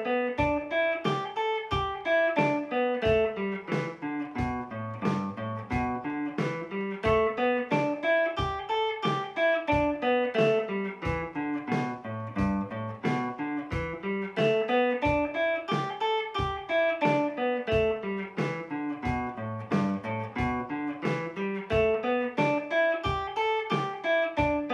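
PRS Vela electric guitar playing the E minor pentatonic scale in the fifth (D-form) position as single eighth notes at 90 bpm, running up and down the scale over and over.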